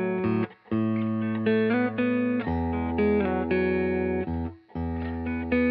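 Guitar music: plucked chords ringing on, broken by two brief pauses.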